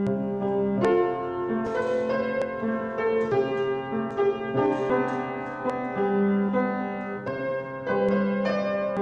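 Piano playing a slow piece, with notes and chords struck about once a second and left ringing.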